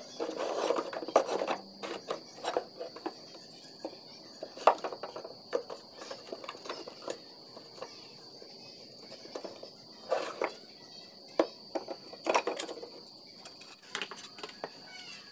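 Scrap wood offcuts knocking and clattering against each other and the sides of a wooden bin as they are rummaged through and pulled out, in irregular knocks with short quiet gaps. A steady high-pitched tone sounds underneath.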